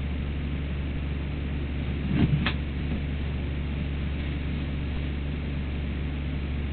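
A steady low hum runs throughout. About two seconds in there is a brief thump and a click as a Doberman puppy digs and scratches at a couch.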